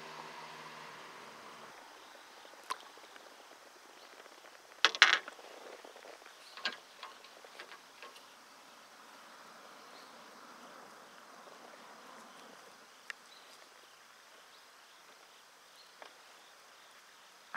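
Quiet outdoor ambience with a low hum that stops in the first two seconds, then scattered sharp clicks and knocks. The loudest is a short cluster of knocks about five seconds in.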